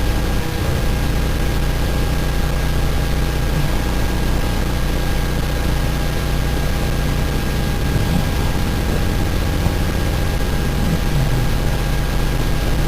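Steady low hum with an even hiss and two faint steady tones, unchanging throughout, with no breath-by-breath rhythm.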